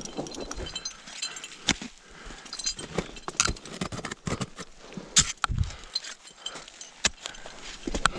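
Crampons kicking and scraping into snow and rock in irregular sharp knocks, with karabiners and climbing gear clinking on the harness.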